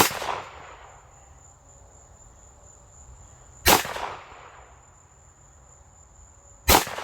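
Three gunshots from an AR9, a 9 mm AR-style gun, about three seconds apart, each followed by a short echo. Insects keep up a steady high buzz underneath.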